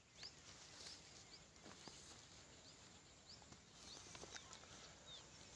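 Near silence, with faint, short, high bird chirps repeated irregularly, roughly one or two a second, and a few faint clicks.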